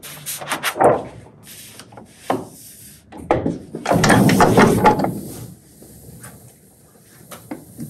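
A sheet of printing paper rustling as it is laid on a cylinder proof press, then knocks and a longer rubbing rumble as the press's gripper lever and cylinder are worked by hand to take a linocut proof. A sharp click near the end.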